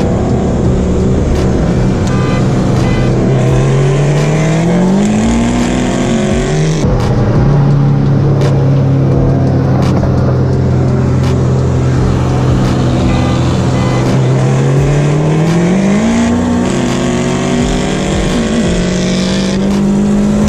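Dodge Neon SRT-4's turbocharged four-cylinder heard from inside the cabin, over road and wind noise. It holds a steady note, then twice rises in pitch under acceleration, and each rise ends in a sudden drop as the car shifts up a gear.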